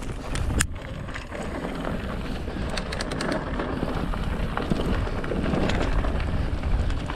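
Mountain bike running fast down a dirt forest trail: wind buffeting the microphone over the rumble of the tyres, with scattered clicks and rattles from the bike. The noise builds gradually as the speed rises.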